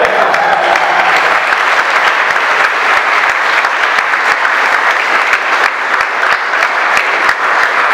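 A large crowd of people clapping, loud and sustained.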